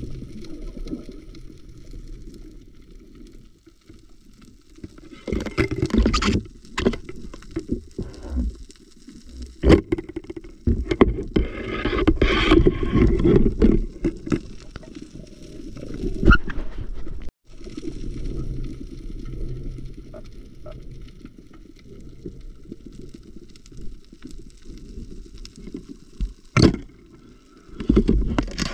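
Muffled underwater noise from a submerged camera during spearfishing: a low steady wash of water with scattered knocks and scrapes, and several louder rushes of water, the longest about ten to fourteen seconds in.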